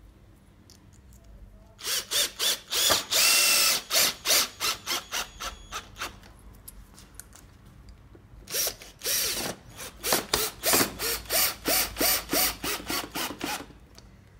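Cordless drill-driver driving screws into a wooden chair frame, twice. Each time the drill runs steadily for a moment, then in a string of quick short bursts as the screw is driven home.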